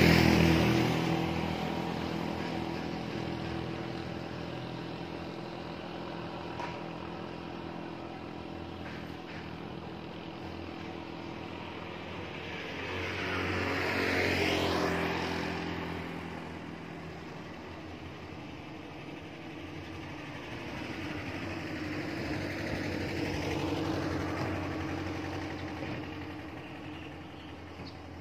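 Road vehicles passing by: engine noise swells and fades as each goes past, one loudly at the start, another about halfway through with its pitch dropping as it passes, and a third building and fading near the end.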